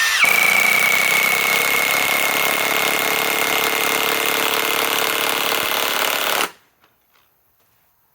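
Milwaukee M18 Fuel Gen 3 high-torque impact wrench (2962-20) driving a 4-inch lag bolt into wood: it spins up, then hammers steadily with a high whine for about six seconds and stops suddenly.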